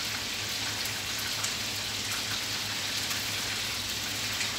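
Steady hissing background noise with a low hum under it.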